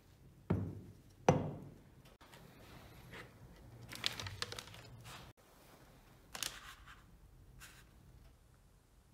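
Two knocks of a metal grease gun barrel being set down on a wooden workbench, the second louder. Then a sheet of paper crinkles, with a light knock as a glass jar and the barrel are handled on it.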